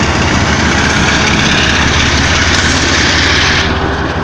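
Two KiwiRail DXC diesel-electric locomotives passing close by under power, with a steady low engine throb under a loud hiss. The hiss drops off sharply near the end as the locomotives go by and the carriages follow.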